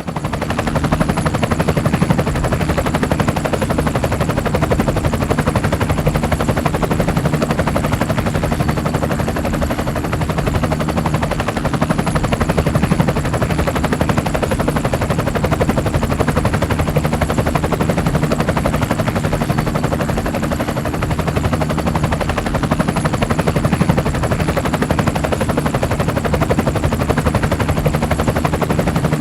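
Helicopter in flight: a fast, even chop of rotor blades over a low engine drone, with a thin high whine on top. The sound is loud and steady throughout.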